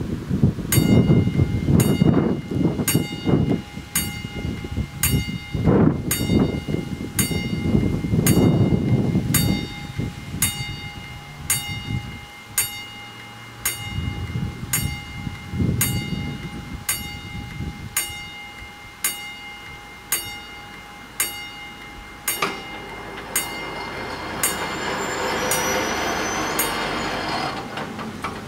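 Mechanical level-crossing warning bell starts striking about a second in and keeps ringing at an even pace of about one and a half strokes a second, each stroke ringing on. Low rumbling noise comes and goes in the first ten seconds, and near the end the barrier drive runs as the booms lower.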